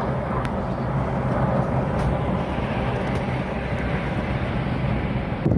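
Steady engine and road noise of a moving car heard from inside the cabin, an even rumble with a low hum.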